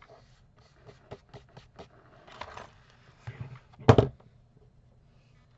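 Paper and a clear acrylic T-square ruler being handled on a cutting mat: small taps and a short rustling scrape, then a sharp knock about four seconds in as the ruler is moved.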